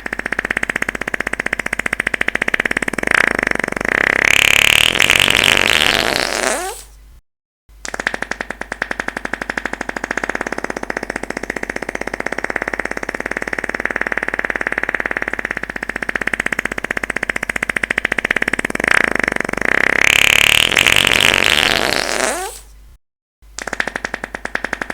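Long fart sound effect: a fast, fluttering buzz that rises to a higher squeal, then tails off and stops short. After a brief silence it starts over, twice.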